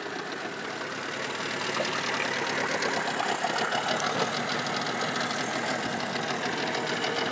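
Small outboard motor on an aluminium john boat running steadily, pushing the boat along; it grows a little louder over the first couple of seconds.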